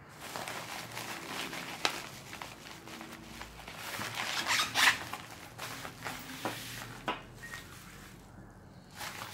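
Rustling and crinkling of packaging with scattered sharp clicks as items are handled. The handling is busiest about four to five seconds in and dies down near the end.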